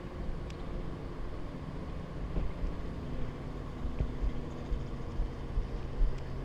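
Outdoor ambience: wind rumbling and buffeting on the microphone over a low, steady hum of distant traffic, with a few faint clicks.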